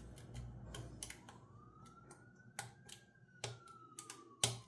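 Lock picks clicking and tapping irregularly against the pins inside a challenge lock as it is being picked, with one sharper click near the end. A faint tone slowly rises and then falls in the background.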